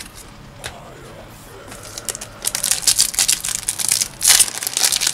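Foil wrapper of a Yu-Gi-Oh booster pack crinkling and tearing as it is ripped open by hand. It starts about two and a half seconds in as a rapid crackle, loudest near the end. Before that there are only a few light clicks of cards being handled.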